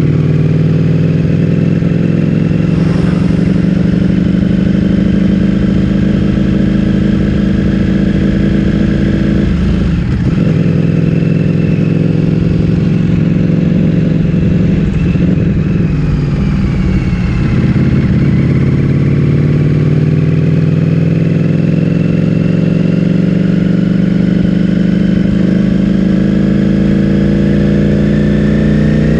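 Ducati Streetfighter V4S's 1103 cc V4 engine through an Akrapovic full-system exhaust, running at low, fairly steady revs, with the pitch climbing near the end as the bike accelerates.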